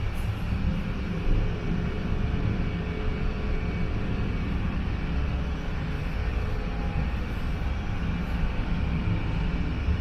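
Steady low rumble and hum of factory machinery running without pause, with a few faint steady tones above it.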